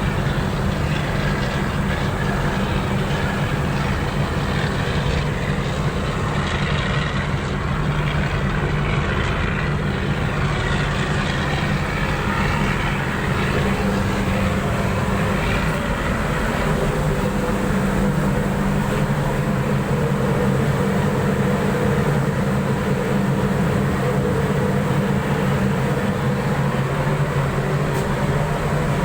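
Tugboat diesel engines running steadily under load while towing a grounded barge, a constant low hum with noise over it.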